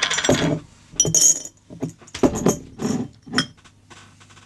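Small craft beads clinking and rattling against each other and against glass as they are handled and dropped into a glass jar, in several short bursts.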